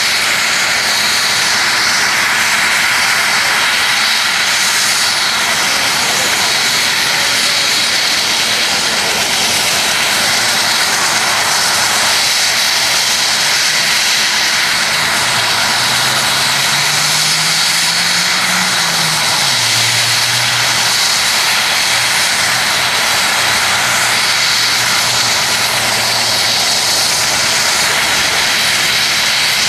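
UH-60 Black Hawk helicopter running on the ground: a steady, loud turbine whine and rush. About halfway through, a faint low hum rises in pitch and then drops back.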